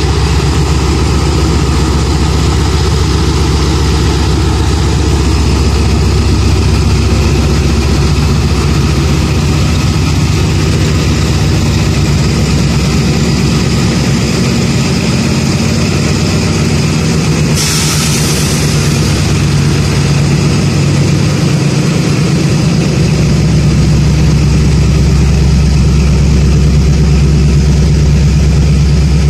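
Diesel-electric locomotive engine idling with a steady low hum. A brief hiss sounds about two-thirds of the way through.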